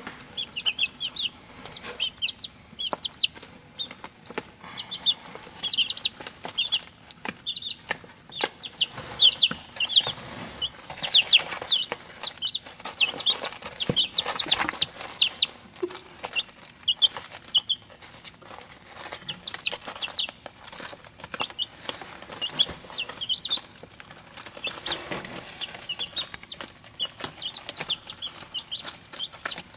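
A flock of young Barred Rock chicks peeping: a constant run of short, high, downward-sweeping calls, busiest and loudest around the middle. Scattered light clicks and rustles of the chicks pecking and scratching in wood shavings.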